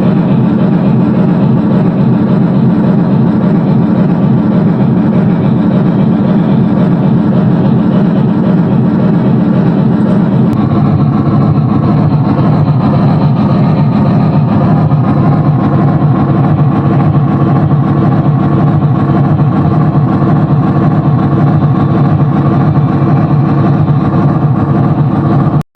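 Reading 2101, a 4-8-4 steam locomotive, running at speed with a loud, steady rumble that shifts lower in pitch about ten seconds in.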